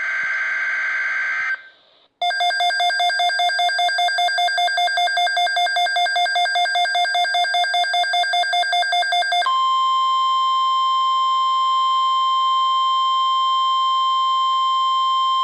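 NOAA Weather Radio emergency alert: the end of a SAME digital data burst (a short buzzing squawk), then about seven seconds of rapid, evenly pulsed electronic beeping, then the steady 1050 Hz warning alarm tone for about six seconds, which cuts off sharply.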